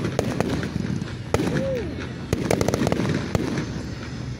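Fireworks display: aerial shells bursting with a string of sharp bangs and crackles, a louder bang about a second and a half in and a quick run of crackles in the middle.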